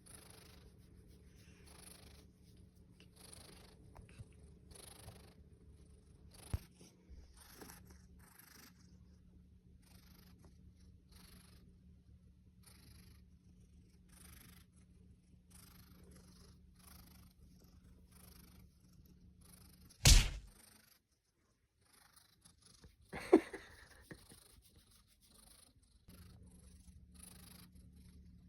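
Domestic cat purring steadily, with soft repeated rustles over the purr. About two-thirds of the way through there is a sharp loud click, the purring stops for a few seconds with one more brief sound in the gap, and it starts again near the end.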